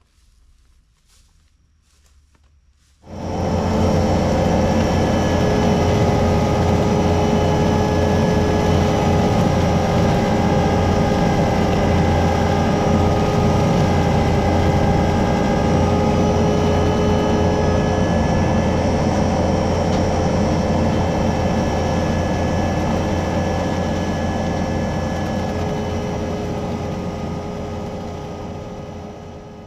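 Skid steer's diesel engine running steadily with constant whining tones over it, starting abruptly about three seconds in and fading out near the end.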